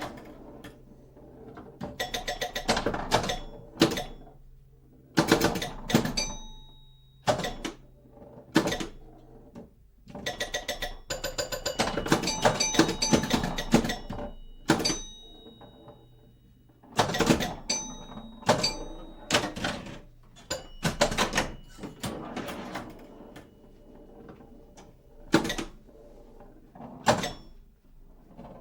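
A series of loud knocks and bangs with rattling, metallic clatter, irregularly spaced, several leaving a brief high ringing.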